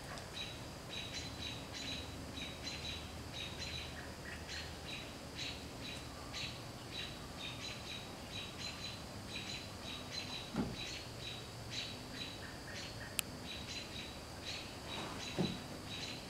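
A steady background chorus of short, high chirps, several a second, which the uploader puts down to squirrels. Two brief falling squeaks cut through it, one a little past the middle and one near the end.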